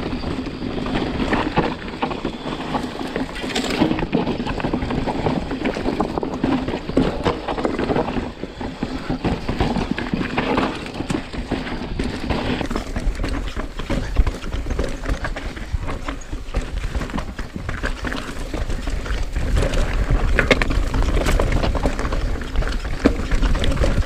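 Mountain bike descending rocky singletrack: tyres crunching and knocking over loose rock, with the chain and frame rattling at each hit. Wind rumble on the microphone grows louder over the last few seconds as the speed picks up.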